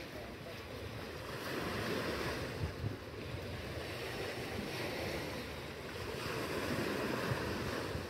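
Small Black Sea waves breaking and washing onto a sandy beach, swelling and ebbing as each wave comes in, with wind buffeting the microphone.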